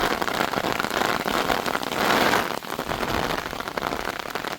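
Heavy rain pattering hard on surfaces, a dense crackling hiss that swells about two seconds in and then eases slightly.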